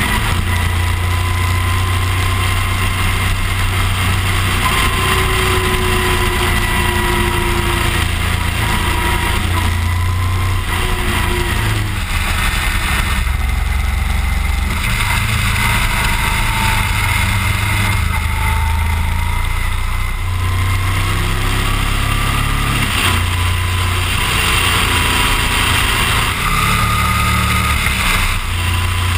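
Motorcycle engine running while the bike is ridden, its low note changing with the throttle every few seconds, with wind and road noise on the bike-mounted camera.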